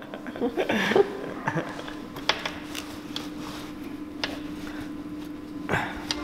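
A few sharp metallic clicks of a spanner working a fitting under a truck chassis, spaced a second or two apart, over a steady low hum.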